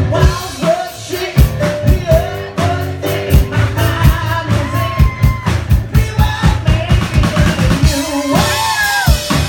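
Live band music: a drum kit played in a steady beat, with bass drum and snare strokes, under piano and a male singing voice; near the end the voice glides up and down on a held note.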